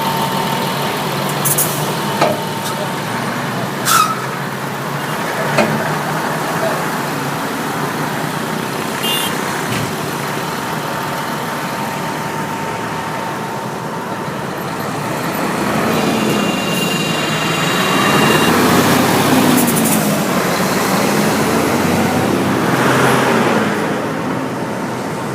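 Vehicle engines and road traffic running steadily, with a few short knocks in the first few seconds. In the second half a louder engine comes up, its pitch rising and falling.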